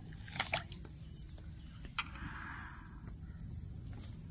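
Hands cleaning squid in a steel bowl of water and pulling out its clear pen: quiet wet handling with a few light clicks against the bowl, two close together about half a second in and one more about two seconds in.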